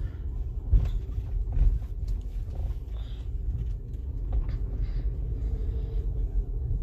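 Low rumble of a car heard from inside the cabin as it rolls slowly into a parking lot, with two brief thumps about one and two seconds in.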